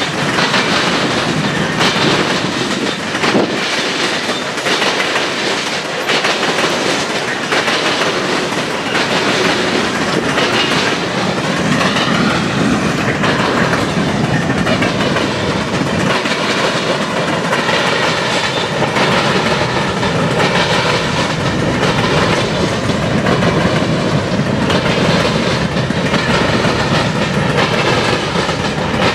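Open-top coal hopper cars of a long freight train rolling by, steel wheels clattering steadily over the rail joints. About halfway through, a wavering wheel squeal rises out of the clatter and holds on.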